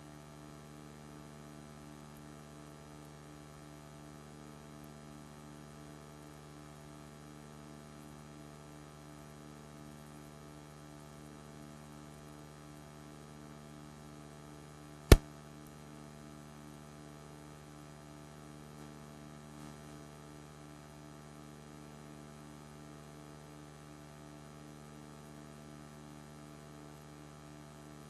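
Steady electrical mains hum, with a single sharp click about halfway through, much louder than the hum.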